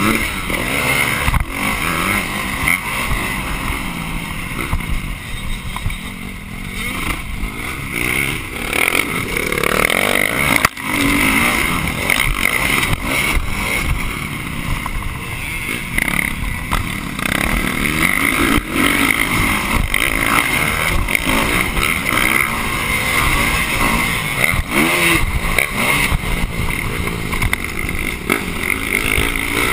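Dirt bike engine revving up and down as it is ridden around a motocross track, heard close up from a camera on the handlebars. A sharp jolt about eleven seconds in.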